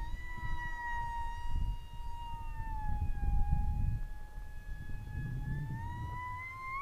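Whine of a Radiolink SU-27 parkjet's electric motor and propeller in flight: a steady high tone that sags slightly in pitch midway and rises near the end. Wind rumble on the microphone comes and goes underneath.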